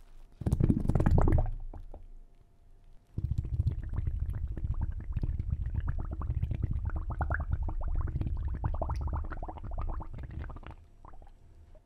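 Water bubbling and gurgling sound effect: a short deep burst about half a second in, then a long run of dense bubbling over a low rumble from about three seconds in, fading out near the end.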